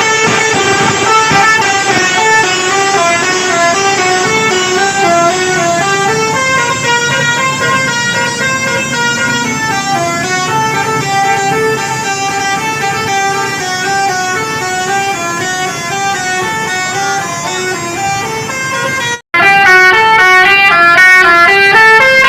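Bus telolet horn, a multi-tone air horn, playing a long melody of stepping notes with several pitches sounding together. It breaks off for an instant near the end and carries on louder.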